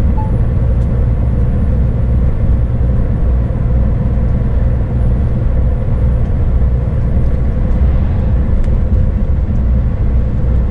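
Scania S500 truck heard from inside the cab while cruising on the highway: a steady, loud low engine and road drone with an even hum.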